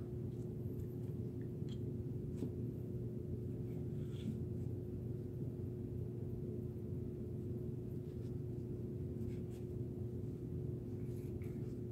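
A steady low drone with one held tone runs throughout. Over it come a few faint, short clicks of metal carbine parts (receiver, recoil spring and guide rod) being handled on a towel.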